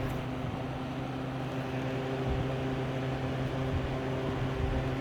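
Freshly cleaned Holmes Blizzard fan running on its lowest speed: a steady motor hum with a few held tones over the even rush of air.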